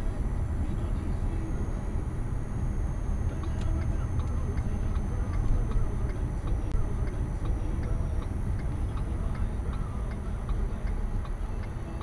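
Car driving on a snowy road, heard inside the cabin: a steady low rumble of tyres and engine. From about a third of the way in, a light regular ticking joins it, about three ticks a second.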